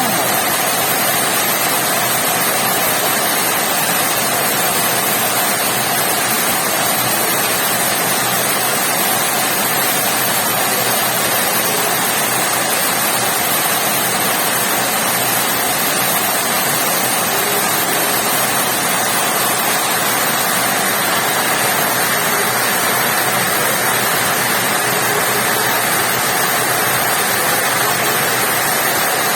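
Steady rain falling, a dense, even hiss with no breaks.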